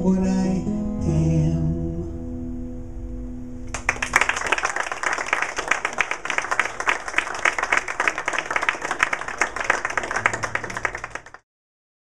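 Last sung note of a folk song, held over a ringing acoustic guitar chord and fading, then an audience applauding from about four seconds in; the applause cuts off abruptly near the end.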